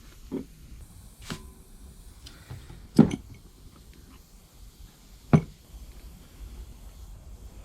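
Sharp knocks and clinks of hand tools and metal parts being handled during brake work, four in all, the loudest about three seconds in and again about five seconds in.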